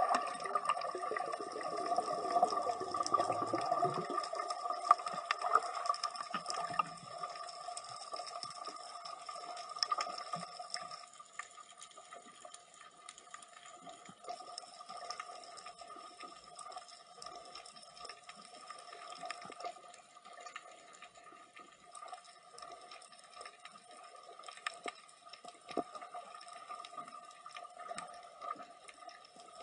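Underwater sound picked up by a camera in a dive housing: a steady hum of a few tones with scattered crackling clicks, and louder water movement in the first few seconds.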